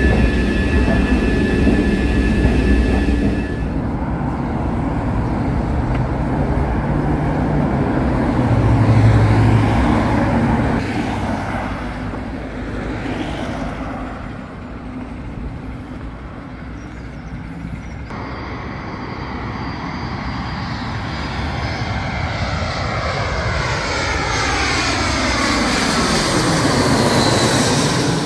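Jet airliner engine noise. Near the end, the sound sweeps down and back up as an aircraft passes close.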